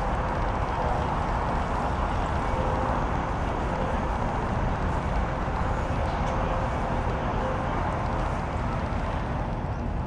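Steady outdoor background noise, heaviest in the low end, with faint, indistinct voices in it.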